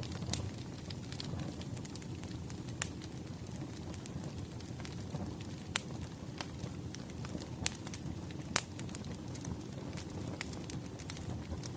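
Wood fire crackling: a steady low rushing with irregular sharp pops, a few of them loud.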